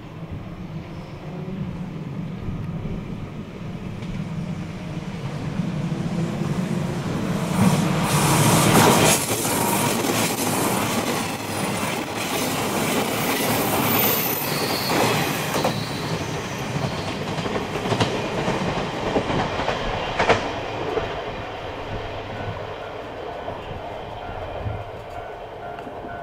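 A passenger train passing over a level crossing. It grows louder to a peak about a third of the way in, with wheels clicking over the rail joints through the middle, then fades away.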